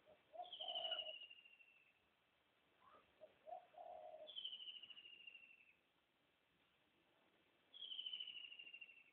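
Faint bird calls: three high, slightly falling trilled whistles, each about a second and a half long and spaced about three and a half seconds apart, with a few short lower notes near the first two.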